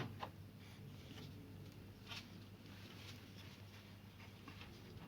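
Faint handling noise while wiring is worked by hand: a few light, scattered clicks and taps over a low steady hum.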